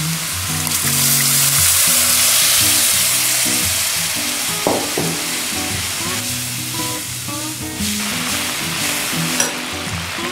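Butter-fried corn kernels sizzling hard as stock is poured into the hot pan, then bubbling and hissing more quietly as a spatula stirs it. The sizzle is loudest in the first few seconds and eases off after that.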